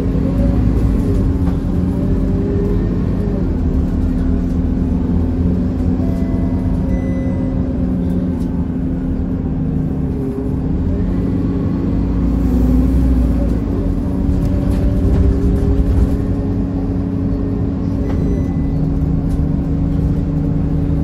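Scania K230UB bus's five-cylinder diesel engine and drivetrain running as the bus drives, heard from inside the passenger cabin as a low rumble with a steady hum. It grows louder about twelve and again about fifteen seconds in.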